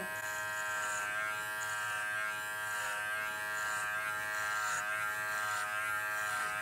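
Joyzee Hornet adjustable-blade dog clipper running on high speed, a steady buzzing hum, as its blade skims over a Goldendoodle's thick coat to shape it.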